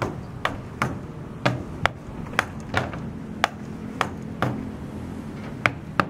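Hand hammering on a building site: irregular sharp strikes, about two a second, some with a short metallic ring.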